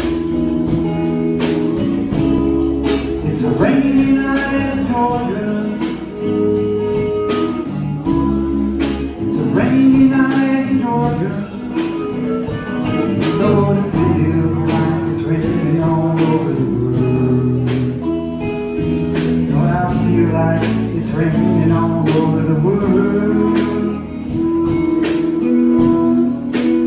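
Live band playing a slow instrumental intro: a harmonica carries the melody over electric guitar, electric bass and drums keeping a steady beat.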